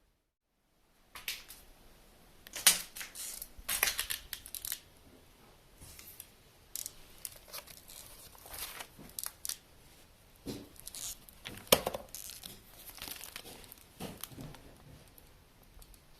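Paper and debris crinkling, crunching and scraping in irregular sharp bursts, after about a second of silence at the start.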